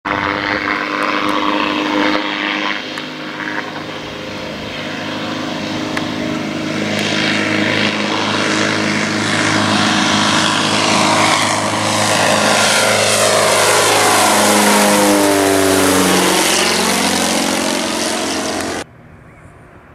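Light propeller aircraft, a high-wing microlight, flying low past with its engine running steadily. Its pitch falls as it passes close by about three quarters of the way through, and the sound cuts off suddenly shortly before the end.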